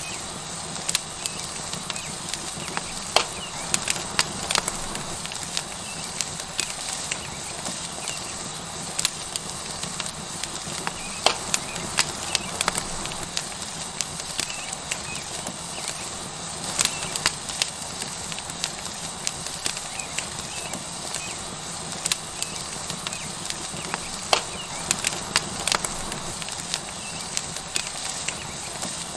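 Tomahawk steak sizzling on a hot rock over a wood fire: a steady hiss with frequent sharp crackles and pops.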